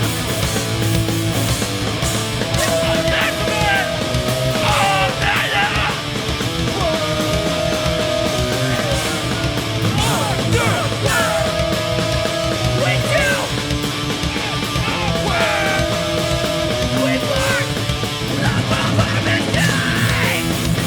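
Hardcore punk band playing live, loud and steady, with distorted electric guitars, bass and drums.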